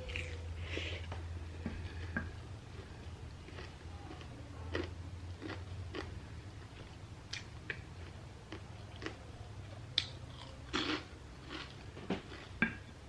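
Close-miked mukbang eating of chatpate, the spiced puffed-rice snack: wet chewing with scattered small crunches and mouth clicks, over a steady low hum.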